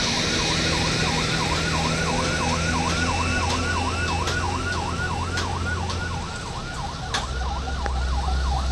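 Escort vehicle siren on a fast yelp, sweeping up and down about three times a second, over the steady low drone of heavy diesel truck engines in a slow-moving oversize-load convoy.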